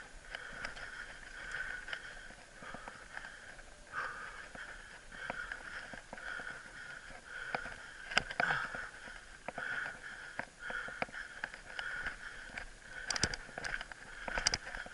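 Mountain bike riding over a rough dirt singletrack: the bike rattles and clatters with many small knocks from the trail, a buzzing tone that comes and goes, and sharper knocks about eight seconds in and near the end.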